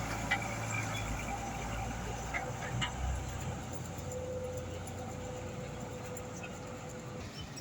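Old diesel truck's engine rumbling and fading as it moves off. A faint, thin steady whine holds for about three seconds in the second half.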